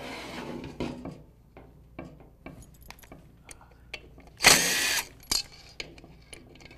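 Cordless drill/driver spinning briefly, about two-thirds of the way in, as it backs a #35 Torx pump bolt out of a Mercedes 722.9 transmission's front pump. Before it come light knocks and clicks as the aluminium housing is tipped over and the bit is set on the bolt.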